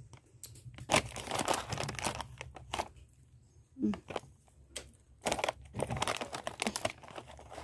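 Plastic snack packet crinkling in irregular bursts, as from chips being taken out for the monkeys, with one short low vocal sound about four seconds in.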